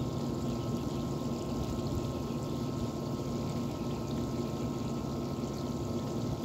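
A wet dog being scrubbed by hand in a plastic tub of water, with sloshing and wet rubbing over a steady hum and rushing noise that runs without a break.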